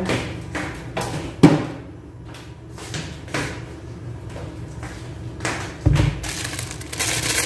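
Kitchen clatter as cookware and containers are put away: a series of knocks and taps, with a sharp knock about one and a half seconds in and a dull thud just before six seconds, then a short burst of noise near the end.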